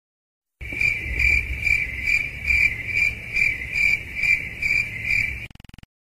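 Cricket chirping sound effect: a steady high chirp pulsing about two and a half times a second. It starts after a short silence and cuts off near the end.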